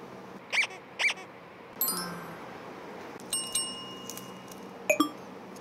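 Comic sound effects added in editing: two quick pitch-bending blips, then bell-like dings, one about two seconds in and a longer chiming ring from about three seconds, with a couple of sharp ticks near the end.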